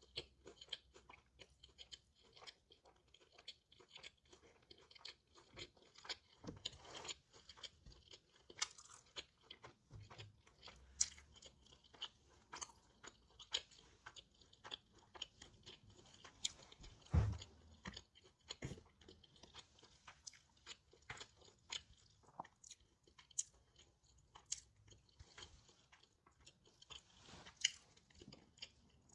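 A person chewing and biting into a crispy fried chicken sandwich, with many small crunches and mouth clicks throughout. A single low thump a little past halfway is the loudest sound.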